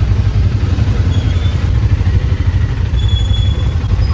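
Vehicle running while on the move: a loud, steady low rumble of engine and road noise.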